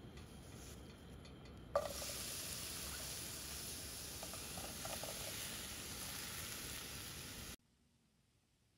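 Chopped apple pieces tipped into a hot nonstick pan, landing with a sharp hit about two seconds in and then sizzling steadily, with a few small knocks of more pieces dropping. The sizzle cuts off abruptly about a second before the end.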